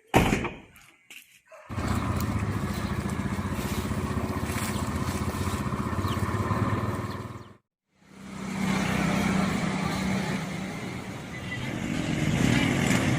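A thump, then a motor vehicle's engine running steadily on the move, with road noise. It breaks off abruptly for a moment a little past the middle, then carries on.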